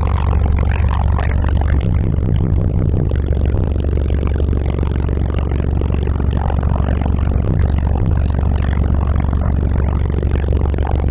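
Car audio subwoofers in a 6th order bandpass enclosure playing a bass-heavy song at high volume, with deep, sustained bass notes dominating and shifting in pitch.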